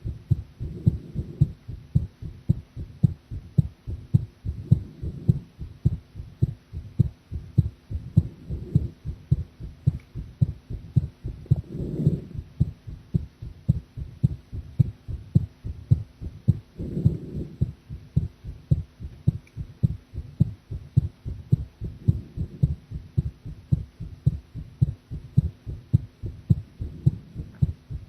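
A woman's heartbeat heard at the chest: a steady run of low lub-dub thumps, with a duller, softer swell rising over them every four or five seconds.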